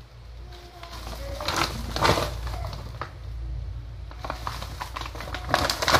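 Woven plastic rice sack rustling and crinkling as it is handled and turned over, in a couple of bursts, about a second and a half in and again near the end, over a steady low hum.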